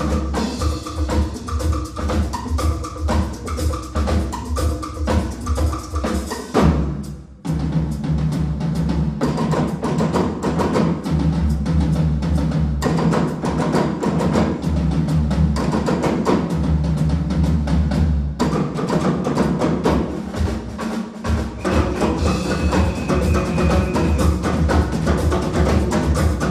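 Percussion ensemble playing live: drum kit, timbales and congas in a fast, dense groove. The music drops out briefly about seven seconds in, then picks up again with a heavier, steadier low end.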